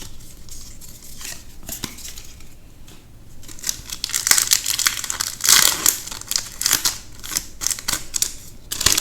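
Crinkling and rustling of a Magic: The Gathering booster pack's foil wrapper and cards being handled, soft at first, then busy and louder through the middle with many small clicks, and one sharp click near the end.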